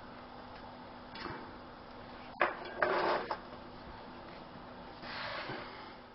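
Small stainless steel flat-pack box stove handled and set down on a wooden table: a sharp tap about two and a half seconds in, followed by a brief scrape and rustle, with a softer rustle near the end.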